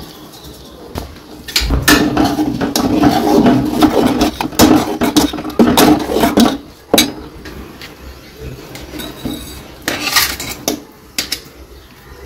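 Metal spoon stirring soaked sago pearls in water in a metal pot, scraping and clinking against the pot in a dense run from about a second and a half in until about seven seconds. A few separate knocks and clinks of metal follow.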